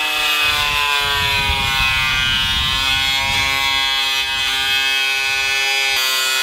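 Angle grinder with a cut-off disc cutting through a fan garnish trim ring. The motor's whine sags in pitch over the first couple of seconds as the disc bites, then holds steady.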